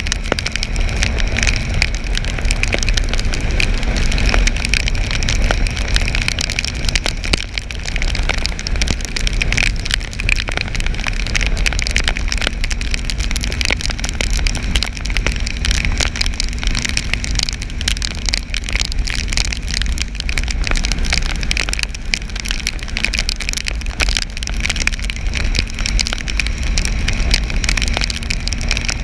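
Rain heard from a motorcycle riding along a highway: raindrops ticking on the microphone over steady wind and road rumble, with a steady low hum throughout.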